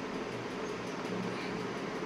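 Steady in-cabin noise of a moving car: an even hiss of road and engine noise with a faint low hum underneath.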